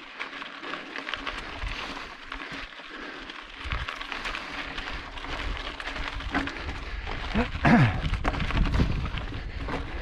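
Mountain bike riding over a rough desert trail: tyres crunching and rattling over gravel and rock, with wind buffeting the microphone heavier from about four seconds in. A brief squeal that swoops down and back up in pitch stands out near the end.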